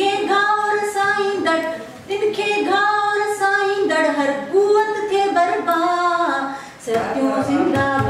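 A woman singing an anthem solo and unaccompanied, in long held melodic phrases with short breaths between them.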